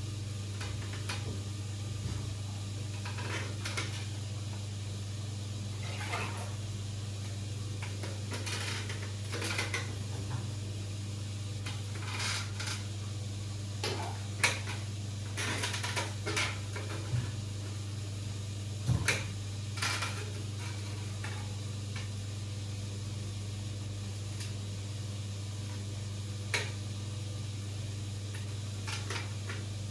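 Steady low hum of running aquarium equipment, with scattered light clicks and clinks over it, a few of them louder.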